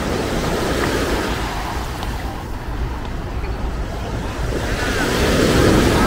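Small waves breaking and washing up onto a sandy shore, swelling about a second in and again near the end, with wind rumbling on the microphone.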